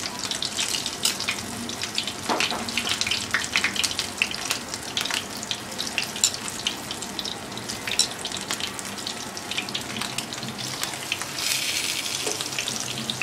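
Hot oil sizzling and crackling in a frying pan as rava- and rice-flour-coated stuffed pomfret fries. Near the end the sizzle briefly gets louder as another coated fish is laid into the oil.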